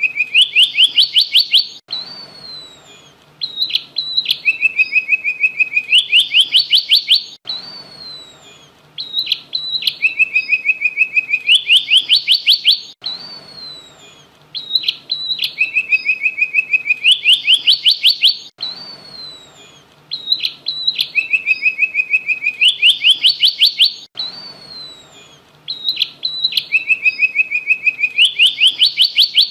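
A small songbird singing the prenjak song: bursts of rapid, sharp chirps. The same phrase comes back about every five and a half seconds, each burst lasting three to four seconds, with fainter chirps in between.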